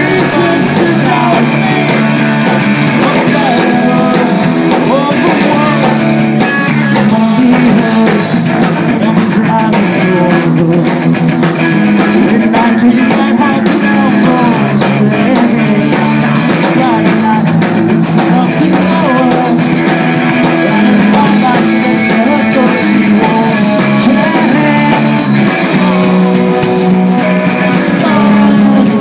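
Rock band playing live: electric guitars, bass and drums, loud and steady, with no sung words in this stretch.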